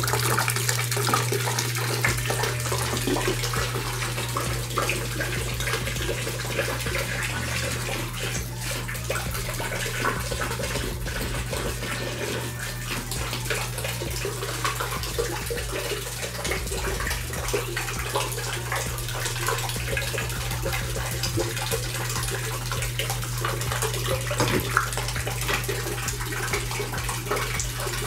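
Water jet from a submersible pump's hose pouring onto the blades of a fan motor and splashing steadily into a plastic tub of water, with a steady low hum underneath.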